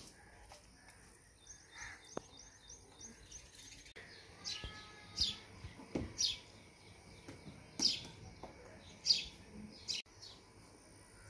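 Birds chirping: a quick run of high chirps, then a string of short, high notes sliding downward, roughly one a second.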